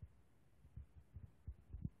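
Very quiet, with about five short, muffled low thumps spaced irregularly through the second second.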